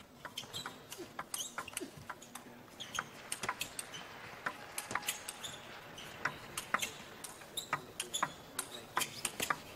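Table tennis rally: the ball clicking sharply off the rackets and the table several times a second in an uneven rhythm, with short squeaks from the players' shoes on the court floor.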